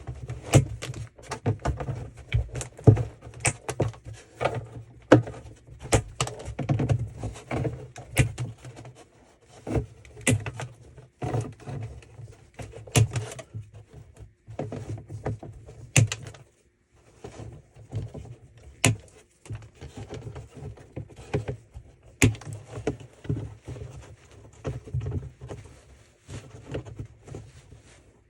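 Irregular knocks and handling thumps on a plastic trash can, with sharp clicks as zip ties are pulled tight and their tails cut with needle-nose pliers.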